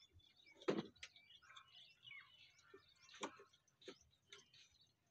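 Knife clicking against a small cutting board while a tomato is sliced: a few sharp, sparse clicks, the loudest about a second in. Faint bird chirps in the background.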